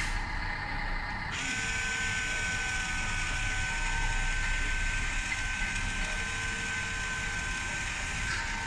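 Small electric motors of a 1/10-scale RC forklift whining as it drives slowly. A thin, steady high tone starts about a second in and holds until near the end.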